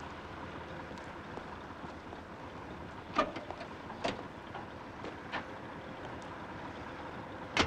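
Steady background hiss with a few scattered short knocks and clicks, the sharpest one near the end.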